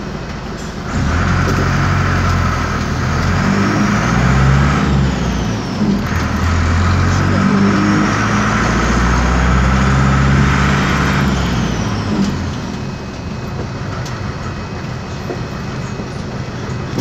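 The air-cooled Deutz diesel engine of an Otokar M-2000 bus, heard from inside the bus and called noisy. It revs up about a second in, dips briefly near six seconds, revs up again, and settles back to a lower, steadier running note about twelve seconds in, with a faint high whine rising and falling with the revs.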